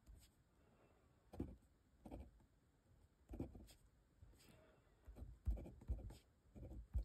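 Fountain pen nib scratching faintly across paper, writing a word in a series of short strokes with brief pauses between them.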